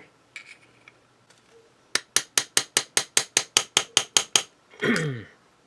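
A quick run of about a dozen sharp, evenly spaced metal clicks, about five a second, as a screwdriver is worked on the cam rivet of a Zippo lighter to press it down. A short grunt follows near the end.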